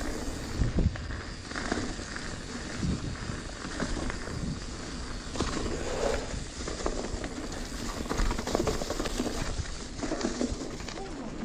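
Radon Slide Trail 10.0 mountain bike descending a leaf-covered dirt trail: tyres rolling and crackling over dirt and dry leaves, with irregular knocks and rattles as the bike hits bumps, the loudest about a second in and again about eight seconds in.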